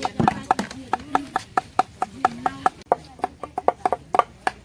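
Large knives rapidly chopping and mincing raw goat meat on thick wooden chopping blocks, about five sharp knocks a second from two people chopping at once.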